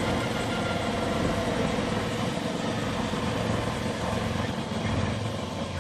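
Medical helicopter idling on the ground after landing, its turbine engine running and main rotor turning with a steady hum.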